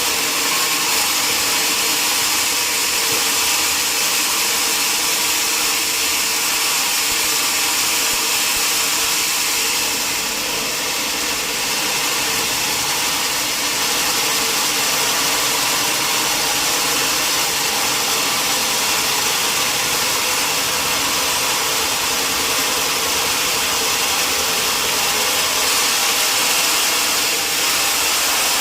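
Sawmill machinery running steadily, a constant hissing mechanical noise that dips slightly about a third of the way through.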